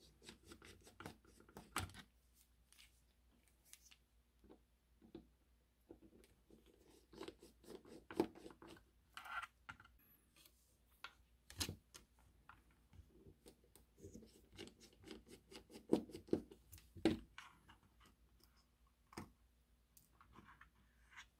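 Faint, irregular clicks and light scratches of a small screwdriver and small metal parts being handled while a model locomotive's Ringfield pancake motor is taken apart, with a few sharper clicks standing out.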